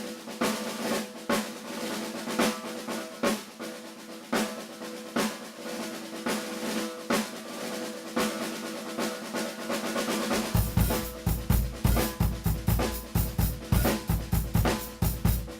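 Mapex Armory Peacemaker snare drum with a maple and walnut shell, tuned high, struck in a series of strokes that ring with a clear pitched tone. About ten seconds in, a bass drum joins and the playing turns into a faster, denser groove on the kit.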